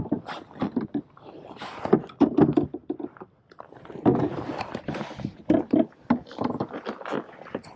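Rain jacket rubbing and rustling against the chest-mounted microphone, with irregular knocks and thunks of gear on the hull of a plastic fishing kayak as the angler moves about.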